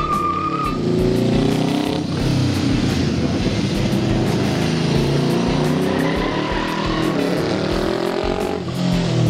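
Homemade go-kart's motorcycle engine revving under load, its pitch climbing and falling several times as the throttle is opened and eased off, with a brief high squeal right at the start.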